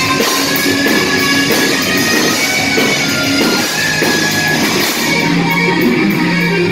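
Live rock band playing loud: electric guitars over electric bass and drum kit.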